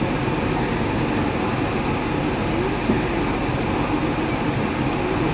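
Yurikamome 7300-series rubber-tyred automated guideway train running, heard from inside the front of the car: a steady rumble of running noise with a few faint ticks.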